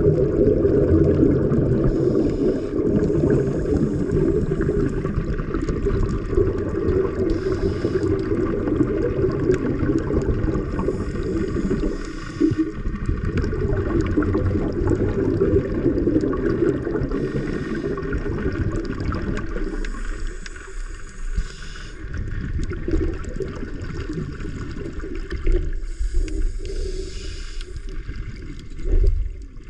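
Scuba regulator breathing heard underwater: a steady gurgle of exhaled bubbles, with a hiss of breath through the regulator every few seconds. The bubbling thins out in the last third.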